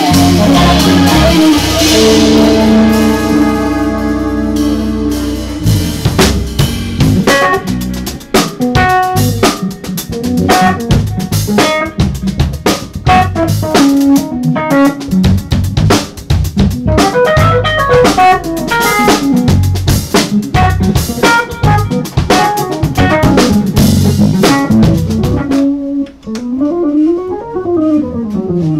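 Live instrumental jazz-fusion band playing with drum kit, electric bass and keyboards. It opens on held chords with a cymbal crash, then moves into busy drumming under fast melodic runs. Near the end the drums drop out and one instrument slides up and back down in pitch before the band comes back in.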